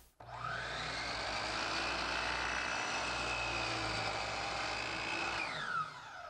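Electric miter saw (chop saw) motor spinning up with a rising whine, running steadily, then winding down with a falling whine near the end, during a light trim cut that sneaks up on a marked line.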